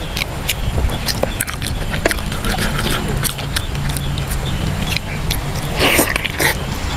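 Braised pork leg being torn apart by hand, with many short wet clicks and smacks of sticky skin and meat pulling away, then a louder bite and chew about six seconds in. A steady low rumble runs underneath.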